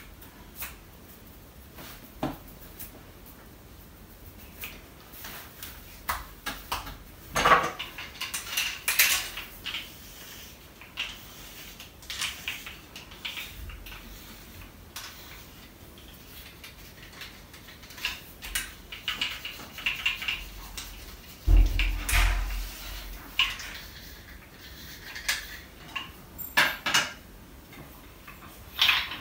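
Wooden massage tools clicking and clacking as they are handled and worked over a bare back. The clicks come irregularly, thicker in a few clusters, with a thump about twenty-one seconds in.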